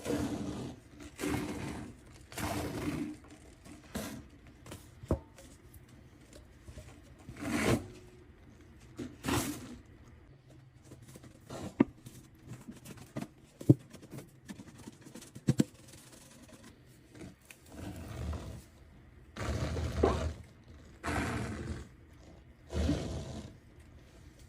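Cleaning by hand: a series of separate scraping or scrubbing strokes, clustered at the start and again near the end, with scattered sharp knocks in the quieter middle.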